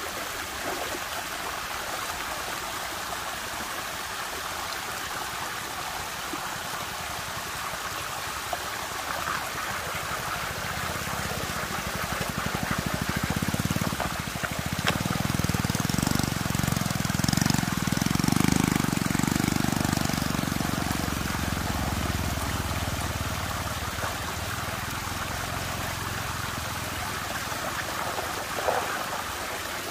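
Water rushing and trickling steadily as it swirls in a whirlpool. A low rumble swells up about ten seconds in, is loudest a little past the middle, and fades away after about twenty seconds.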